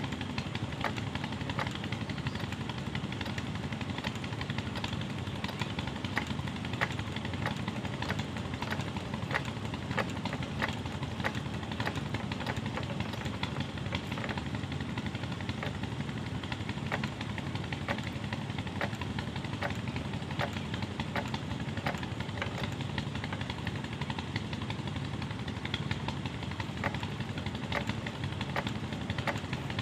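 Kirloskar 5 hp single-cylinder diesel water-pump engine running steadily, with many light sharp ticks through its noise.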